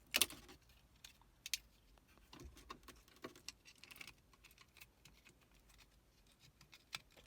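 Light plastic clicks and rattles of wiring connectors being handled and plugged into a dashboard switch, with a sharp click just after the start and another about a second and a half in.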